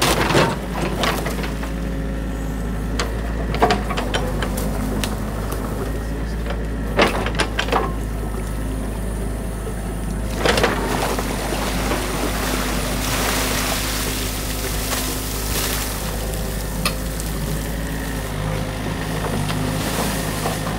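Excavator's diesel engine running steadily, with several sharp knocks of the bucket and a spell of splashing, rushing water when the bucket goes into the stream, a bit under halfway through.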